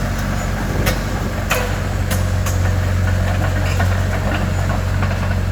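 Caterpillar E70B excavator's diesel engine idling steadily, with a few short sharp clicks in the first two and a half seconds.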